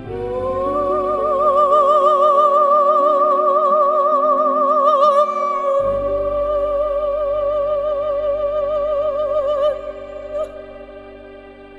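Background music: a high operatic voice holds one long note with wide vibrato over sustained accompanying chords. The note slides up into pitch at the start and fades near the end.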